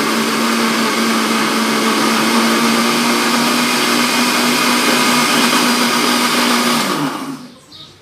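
Countertop blender running steadily as it whips eggs and margarine for a cake batter. It is switched off about seven seconds in and spins down.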